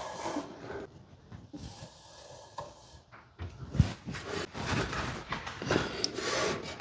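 Rubbing and scraping of a heavy solar inverter being shifted into position, with a sharp knock about four seconds in.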